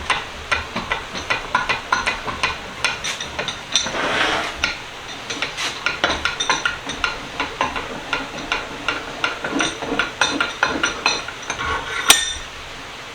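Metal parts of a freshly greased Hollands cast-iron bench vise clicking and clinking by hand, about three light clicks a second, with a louder clank about a second before the end.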